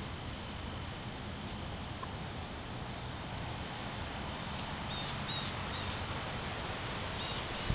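Quiet outdoor background: a steady low hiss and rumble, with a few faint high chirps about five seconds in and again near the end.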